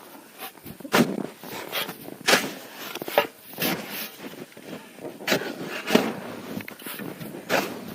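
Repeated crunching impacts on snow and ice, about one a second and unevenly spaced.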